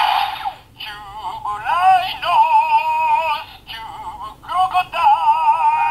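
Bandai Zyuoh The Light transformation toy playing one of its built-in sounds through its small speaker. It opens with a short rush of noise, then a wavering, synthetic-sounding sung melody.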